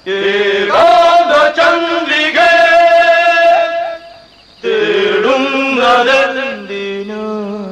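Voices chanting in long held notes, in two phrases with a short break about four seconds in; the second phrase fades near the end.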